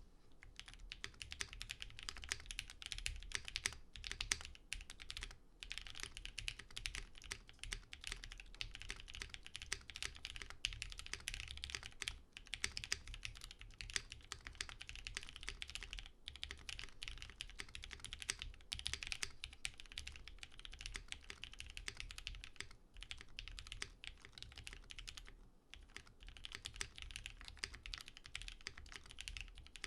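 Steady fast typing on a custom mechanical keyboard with diamond-polished Cherry MX Black linear switches, a UHMWPE plate, a thin PCB and GMK keycaps: a dense run of keystrokes with a few brief pauses.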